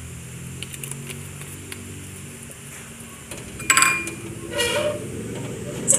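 Metal wok and utensil clanking: a loud ringing clank about two-thirds through, a shorter clatter just after, and a sharp clink at the end, over a low steady hum.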